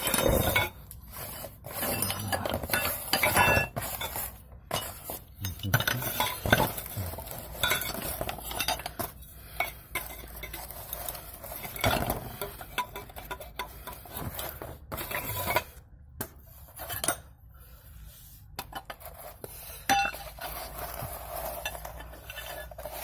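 Metal hand tools and engine parts clinking and clattering as they are picked up, sorted and set down: irregular short knocks and rattles throughout.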